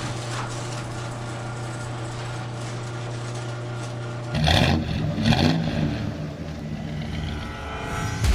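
Car engine running steadily, then revved twice about halfway through, the pitch rising and falling with each rev before settling back.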